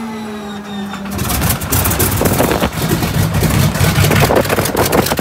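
North American Harvard's Pratt & Whitney R-1340 Wasp radial engine being started. A steady starter whine sags slightly in pitch, then about a second in the engine catches and runs loud and rough with an uneven pulsing beat.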